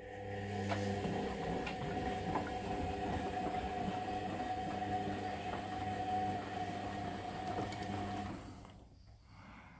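Bendix Duomatic washer-dryer turning its drum during the wash: a steady motor hum and whine with the wet load sloshing and light knocks. The motor stops near the end and the sound dies away.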